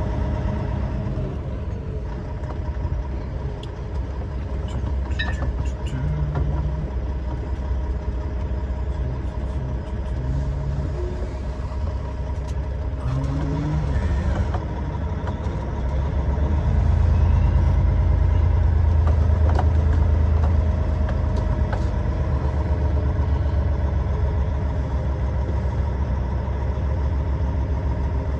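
Semi truck's diesel engine running as the truck rolls slowly, getting louder for a few seconds past the middle as it pulls harder, then easing back.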